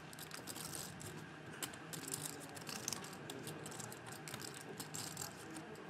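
Faint, irregular clicking of poker chips being fingered and riffled at the table, many small clacks scattered throughout.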